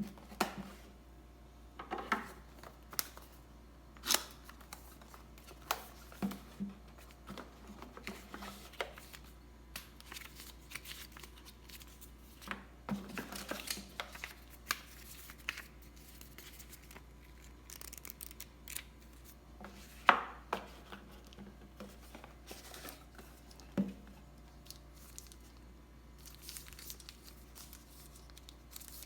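Hands opening and handling cardboard and plastic packaging: scattered clicks and taps with short rustles, and a sharper knock about twenty seconds in.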